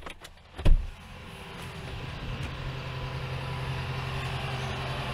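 A car door shuts with a loud thump about a second in, then a motor vehicle's engine runs with a steady hum.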